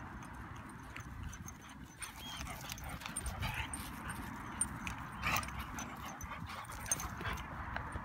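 Two dogs, a Kerry Blue terrier and a young Pointer, chasing each other on grass: dog play sounds with a few short sharp noises, over a low steady rumble.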